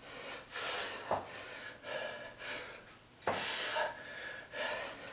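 A man breathing hard from exertion in a high-intensity workout, a quick run of puffs in and out. Two light knocks, about a second in and past the three-second mark, break through the breathing.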